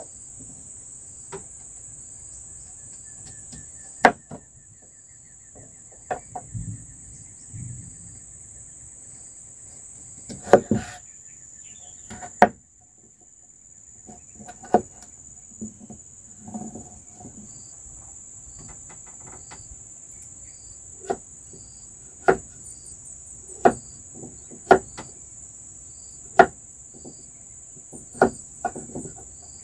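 Knife slicing a peeled mature pumpkin, each cut ending in a sharp knock: a few scattered at first, then about one every second or so in the last third. A steady high chorus of crickets runs underneath.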